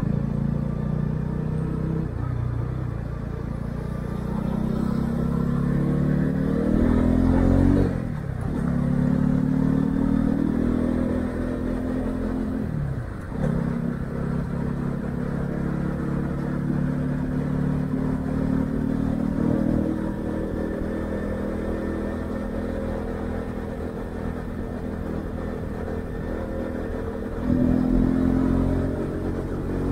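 Honda CB125R's single-cylinder four-stroke engine through its stock exhaust, heard from the rider's chest as the bike accelerates through the gears. The revs climb, dip sharply at upshifts about eight and thirteen seconds in, and the engine gets louder again near the end.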